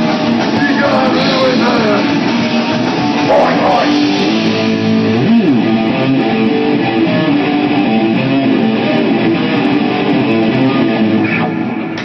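A rock band's rehearsal demo recording, guitar-led, playing steadily.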